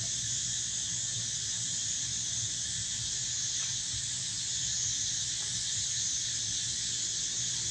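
Steady insect chorus: a continuous high, hiss-like buzz that does not break or change, with a low rumble underneath.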